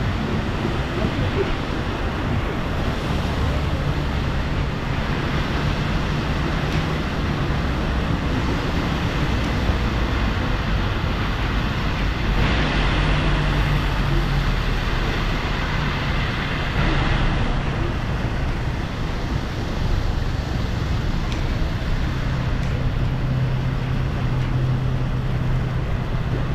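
Heavy rain and road traffic: a steady wash of noise with the hum of passing vehicles, louder for several seconds around the middle.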